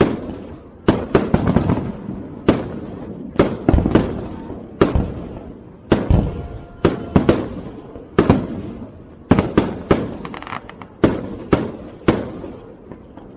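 Fireworks bursting overhead in a steady barrage: sharp booms, each with a fading echo, coming singly and in quick clusters of two to four, roughly every half second to second.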